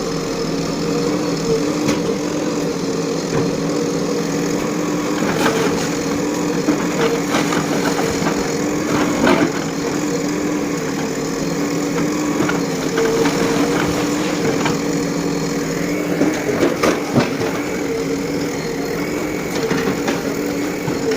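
JCB 3DX backhoe loader's diesel engine running steadily, with scattered cracks and knocks of wood and debris breaking as the building is pulled down.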